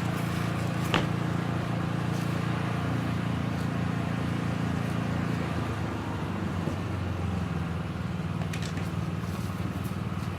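A steady low engine hum, like a motor vehicle idling, with a few sharp clicks; the hum shifts in pitch about halfway through.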